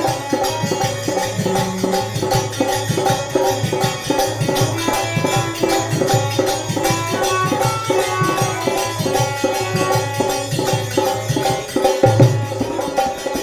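Devotional bhajan music: a held melody line over a fast, steady hand-drum rhythm.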